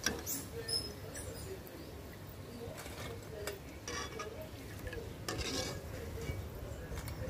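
Ribbon pakoda deep-frying in hot oil, with a steady sizzle. A perforated metal skimmer clinks and scrapes against the metal pan a handful of times as the fried pieces are lifted out and the oil is stirred.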